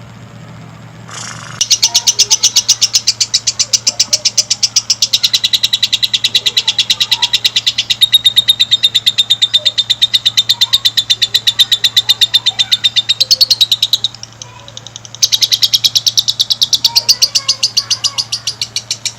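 Lovebird singing its long chattering song: a rapid, unbroken run of sharp high chirps lasting about twelve seconds, a brief pause, then a second run.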